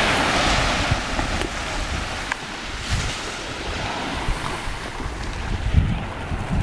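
Small waves washing onto the shore, loudest in the first couple of seconds, with wind buffeting the microphone.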